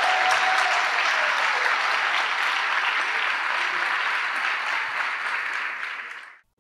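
Congregation applauding steadily, the clapping fading out near the end.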